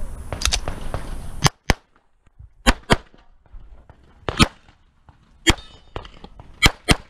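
Semi-automatic pistol shots from a competition run, fired mostly in quick pairs about a quarter second apart with short pauses between the pairs. The first shots come about a second and a half in.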